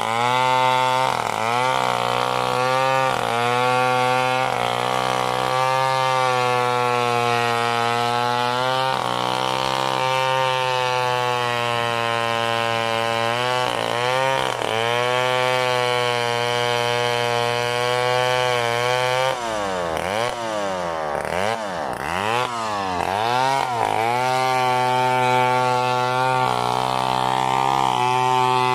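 STIHL gasoline chainsaw running at high revs while ripping lengthwise through a coconut log. The engine pitch dips and recovers again and again as the chain bites into the wood, with a stretch of rapid up-and-down pitch swings about twenty seconds in.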